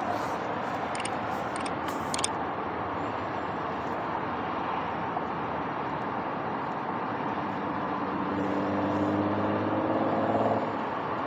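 Steady outdoor road-traffic rush, with a motor vehicle passing near the end, its engine note growing louder and then dropping away quickly.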